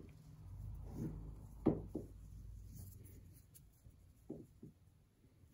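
Braided rope being handled and rubbed as it is looped over a wooden table, with a few soft knocks, the loudest about a second and a half in and two more past the four-second mark.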